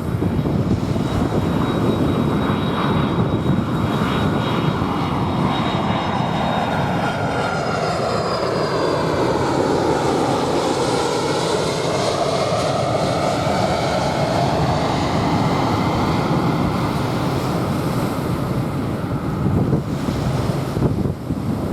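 Jet airliner passing overhead, its engine roar steady and loud, with a hollow sweeping tone that falls to its lowest about halfway through and then rises again as the plane goes over.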